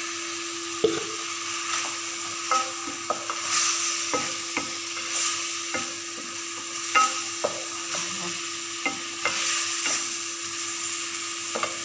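Chicken pieces sizzling in a pan of sauce just thickened with corn flour, while a utensil stirs them, knocking and scraping against the pan every second or so. A steady low hum runs underneath.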